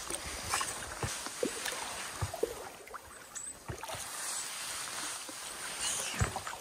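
Canoe paddles dipping and pulling through lake water, with irregular splashes and drips over a steady watery wash; one sharper splash near the end.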